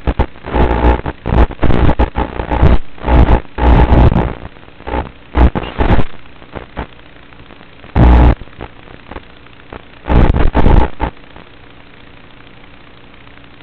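Loud bursts of crackling static with a buzz from an analog FPV video receiver's audio channel as the landed quadcopter's signal breaks up. The bursts come in quick succession through the first half, twice more later, then settle to a steady low hiss.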